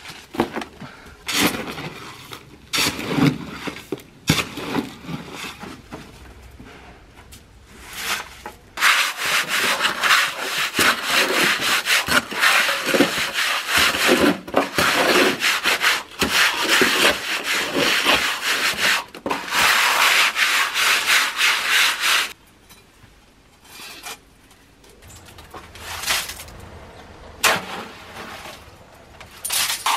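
Gritty scraping of a shovel and steel trowel through gravel and wet concrete. A few separate strokes at first, then about nine seconds in a long run of quick scraping strokes that stops suddenly a little after twenty seconds, with a few more strokes near the end.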